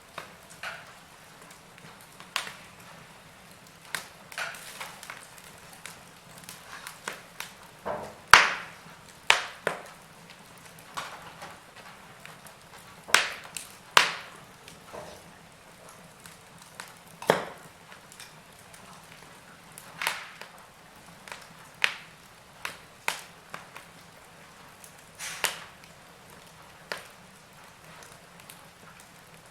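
Wood fire crackling in a fireplace: irregular sharp pops and snaps, a few of them loud, over a faint steady hiss. The loudest pop comes about eight seconds in.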